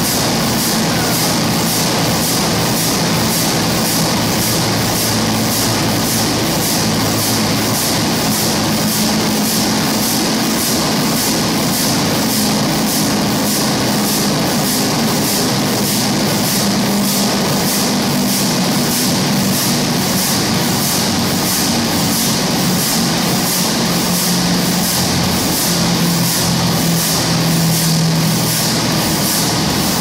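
Burmeister & Wain DM884WS-150, a huge eight-cylinder double-acting two-stroke marine diesel engine, running steadily with a regular beat of somewhat under two strokes a second over a low hum.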